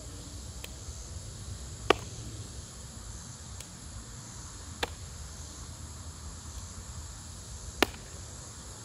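A baseball smacks into a leather glove three times, about three seconds apart, as it is caught in a game of catch. The first and last catches are the loudest. A steady high insect buzz carries on underneath.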